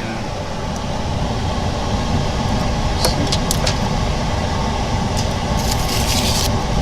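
OCA vacuum laminating machine switched on, its pump motor coming up to speed and then running steadily. There are a few sharp clicks a little past the middle and a short hiss of air near the end.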